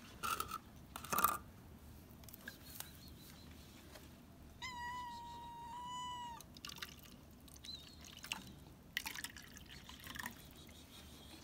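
A cat gives one long, drawn-out meow about halfway through. Around it, sharp plastic crackles and the splash of water poured from a cut plastic bottle into a makeshift bowl, with two louder crackles near the start and a cluster near the end.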